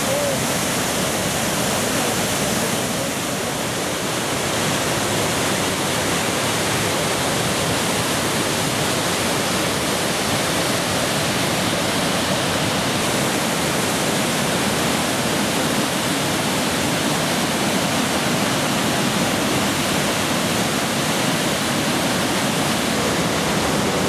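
Large waterfall on the Athabasca River: heavy whitewater pouring over the falls and into a narrow rock gorge, a steady, dense rush of water noise with no pauses.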